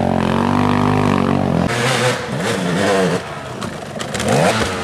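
Dirt bike engines on a steep muddy climb. One engine holds steady high revs; then, from just under two seconds in, an engine revs up and down in short bursts with clattering and scraping from the bike.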